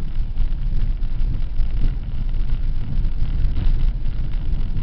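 Steady low rumble inside a 4x4 driving along a wet, rough dirt track: engine and tyre noise heard from the cabin.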